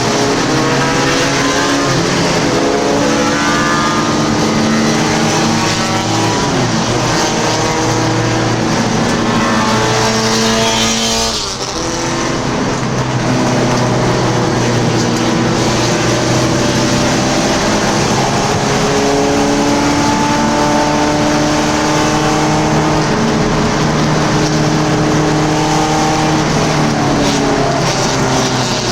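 Ford Mustang race car engine running hard, its pitch climbing again and again and dropping at each gear change, with a brief dip about eleven seconds in and a steady hiss underneath.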